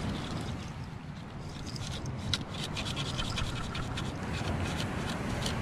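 Sand being shaken through a perforated metal beach sand scoop, a dry scratching hiss with many small ticks of grains against the metal, thicker in the second half, over a steady low rumble.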